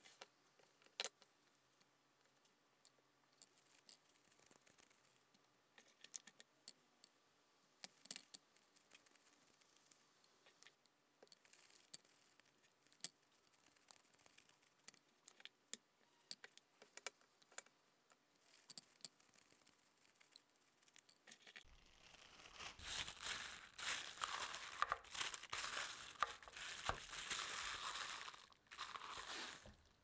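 Faint scattered clicks and taps as cookie dough is handled on a plastic tray, then, about two-thirds of the way in, parchment paper crinkling and rustling loudly for several seconds before stopping sharply.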